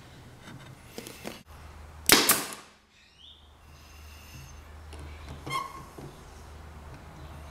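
A pneumatic brad nailer fires a nail into a plywood panel edge: one sharp, loud shot about two seconds in, fading over about half a second. A fainter sound follows about five and a half seconds in.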